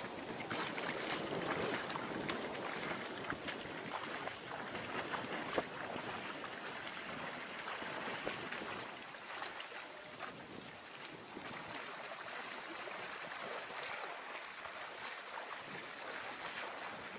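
Footsteps splashing through shallow river water as a man wades across, growing fainter as he moves away, with wind noise on the microphone.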